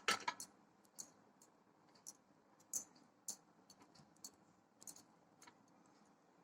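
Faint, irregular light clicks and taps as dough balls are set one by one into the cups of an idli plate.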